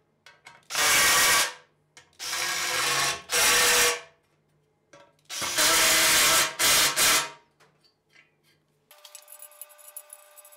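Cordless drill driving bolts into an aluminium table-trunnion bracket, running in about six short bursts. Faint clicks and rattles follow near the end.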